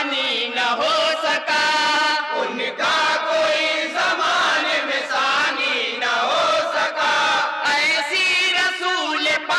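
A chorus of men chanting an Urdu naat together, in long held melodic lines with short breaks between phrases.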